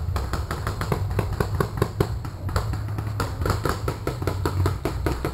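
Paintball markers firing across the field: quick, irregular pops several times a second, over a steady low rumble.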